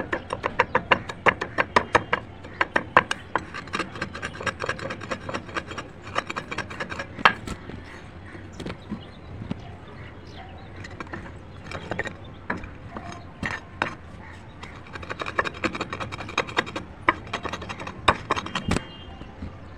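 Slate pencil pieces crunching and cracking as a stone block is pressed and rubbed over them on a stone slab, grinding them to grit. Dense, rapid crackles in the first few seconds and again after about fifteen seconds, with sparser crunches in between.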